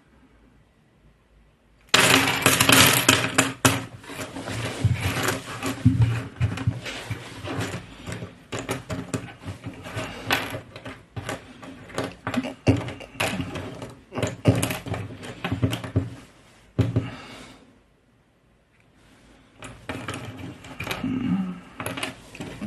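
Cardboard jigsaw puzzle pieces clattering and rustling as they are handled and stirred, with many small clicks. The sound starts suddenly about two seconds in and briefly dies away near the end before picking up again.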